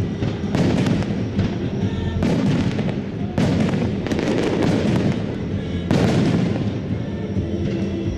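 Aerial fireworks display: shells bursting in quick succession, with louder bursts every second or two and a continuous crackle in between.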